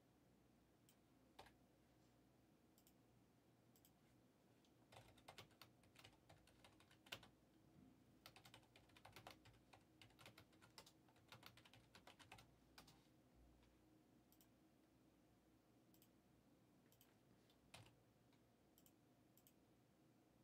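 Faint typing on a computer keyboard: a few scattered keystrokes, then a quick run of them through the middle, then a few more.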